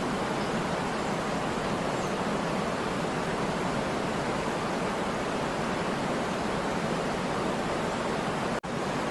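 Waterfall water falling and splashing in a steady, even rush, which drops out for an instant near the end.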